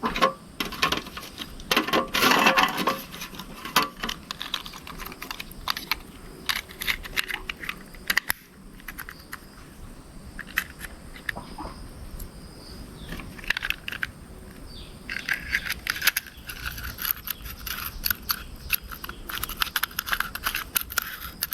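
Close-up handling sounds of a plastic RC car being cleaned: scrubbing and scraping with many small clicks and rattles of parts. There is a loud scratchy stretch about two seconds in, a quieter spell in the middle, and denser brushing near the end.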